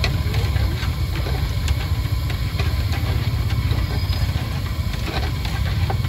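A steady low rumble with light, scattered clinks of a wire skimmer against a large aluminium pot of frying oil as fried balls are stirred.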